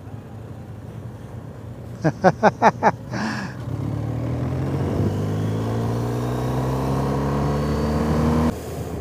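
Motorcycle engine accelerating, its pitch rising steadily for about five seconds before the sound drops away suddenly near the end.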